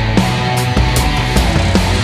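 Loud rock or metal music with heavy drums and distorted guitar.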